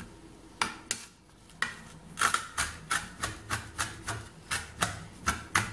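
Knife chopping red onion on a plastic cutting board: two single knocks, then from about two seconds in steady chopping at about three strokes a second.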